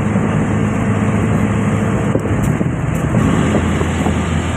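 Engine of a large road vehicle, heard from inside its cab, running steadily at cruising speed under a constant rush of road and wind noise.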